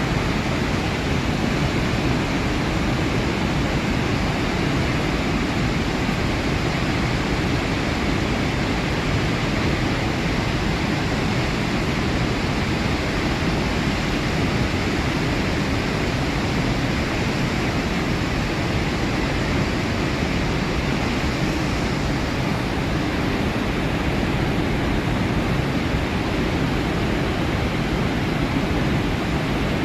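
Large waterfall: the steady, dense rush of water thundering down the Iguazu Falls, a constant roar with no breaks.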